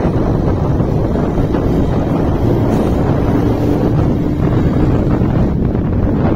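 Wind rushing and buffeting over a phone microphone held out in the open from a moving vehicle, mixed with road and traffic noise. A faint steady low tone runs through the middle few seconds.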